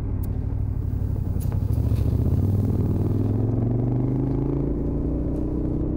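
Twin-cylinder adventure motorcycle engine pulling up a climbing mountain road, heard from the rider's seat; about two seconds in its pitch rises gently as it accelerates, then holds steady. Wind noise rumbles on the microphone underneath.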